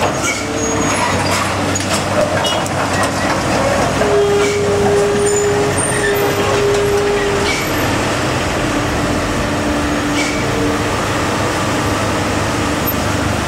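Cars, vans and a pickup driving slowly past close by, engines running, with steady whining tones that come and go over the traffic noise.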